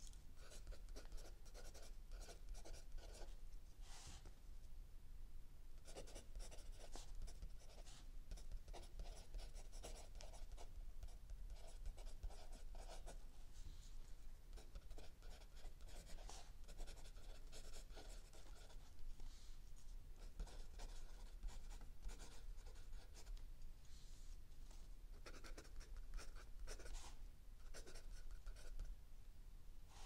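Mechanical pencil writing on lined notebook paper: short runs of quick scratching strokes, with brief pauses between them and a longer pause about five seconds in.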